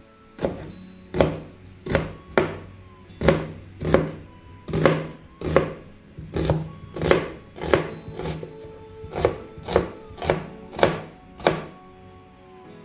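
Kitchen knife slicing through a piece of white onion and striking a plastic cutting board: a steady run of about seventeen sharp knocks, roughly one every two-thirds of a second, stopping shortly before the end.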